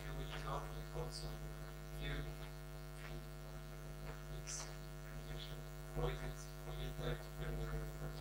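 Steady electrical mains hum, with the faint, distant voice of an audience member asking a question away from the microphone.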